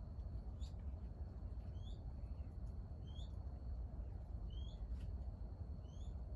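A small bird giving four short, quick-gliding chirps, about one every second and a half, over a steady high thin tone and a low rumble.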